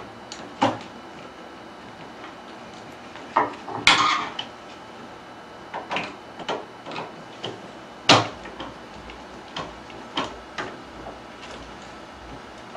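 Scattered clicks and knocks of curtain-track parts being handled during assembly of a motorized curtain track, the two loudest about four and eight seconds in.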